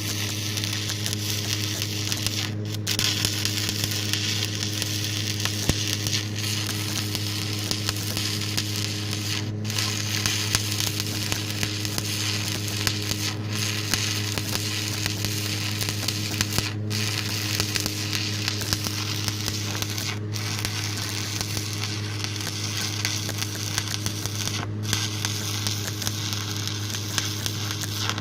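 Stick (SMAW) arc welding with a 1/8-inch 7018 rod: the arc sizzles and crackles steadily while a bead is run, over a steady low hum. The sizzle drops out for an instant about five times.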